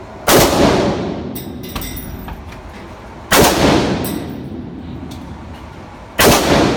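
AR-15 rifle fired three times in slow succession, about three seconds apart. Each shot is followed by a long echo fading over a second or two.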